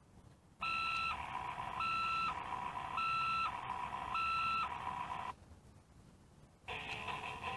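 Electronic sound effect from a Caterpillar toy dump truck, set off by pressing its sound button: four beeps about a second apart over a steady electronic hum, stopping after about five seconds. A second electronic sound starts near the end.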